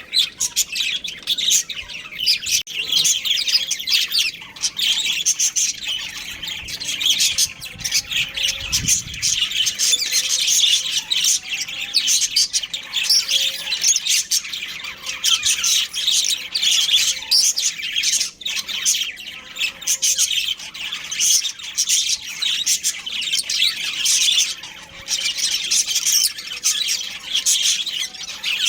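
Budgerigars chirping and chattering in a continuous stream of short, overlapping high-pitched calls, with an occasional squawk.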